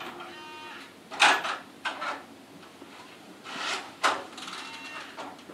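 A handful of sharp knocks and scrapes of someone moving about a room in the dark, the loudest about a second in and again near four seconds.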